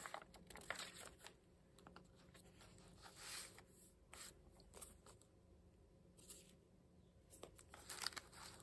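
Faint, scattered rustling and flicking of paper as the thick handmade pages of a junk journal are turned and handled, with a longer rustle a little past the middle and a few more near the end.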